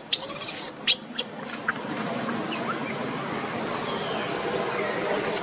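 Newborn macaque squeaking: a few short, very high squeaks in the first second, then one longer high squeal that rises, holds and drops away about halfway through, over a steady background murmur.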